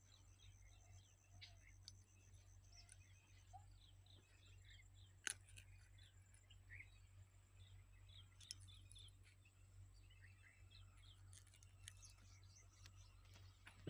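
Near silence with faint birds chirping throughout, and one sharp click about five seconds in.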